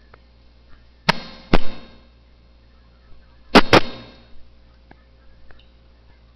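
Computer mouse button clicks close to the microphone: two loud pairs of sharp clicks, one about a second in and one just past three and a half seconds, with a few fainter ticks between. A faint steady electrical hum runs underneath.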